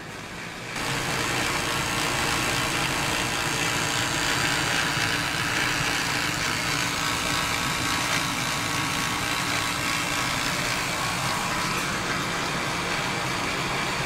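Bryant 80% gas furnace running at steady firing, its gas burners lit and the blower on, making a steady rushing noise with a faint hum. The sound sets in abruptly just under a second in.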